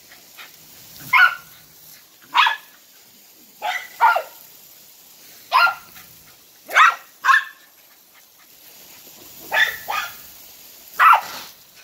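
Dog barking excitedly at the spray from a garden hose: about ten short, sharp single barks, spaced a second or so apart.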